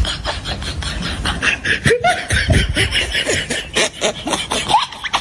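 Comic laughter sound effect: quick, rapid bursts of laughter, with short squeaky rises and falls in pitch from about two seconds in.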